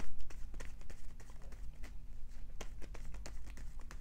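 Tarot deck being shuffled by hand, an overhand shuffle: a quick irregular string of light card slaps and clicks, loudest in the first moment.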